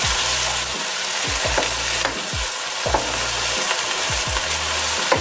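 Onion-tomato-yogurt masala sizzling in ghee in a nonstick wok while a spatula stirs and scrapes it in regular strokes.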